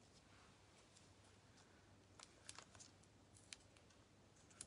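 Near silence, with a few faint light clicks and taps from about two seconds in as hands handle small paper card pieces.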